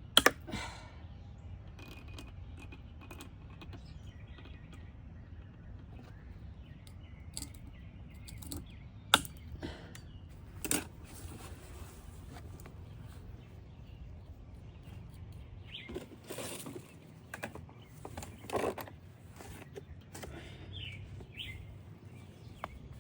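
A few sharp clicks and knocks of metal parts and hand tools being handled: a loud pair right at the start, another about nine seconds in and a smaller one near eleven seconds. Softer scraping and rustling comes between sixteen and nineteen seconds, over a low steady rumble.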